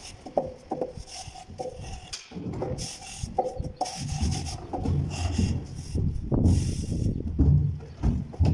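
A long plasterer's straightedge scraping over wet cement render, in irregular rasping strokes as it is pressed and drawn across the wall to level it.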